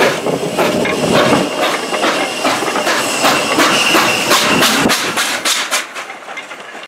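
Hunslet Austerity 0-6-0 saddle tank steam locomotive pulling away, its exhaust beats quickening as it gathers speed, with steam hiss, then fading as it draws away near the end.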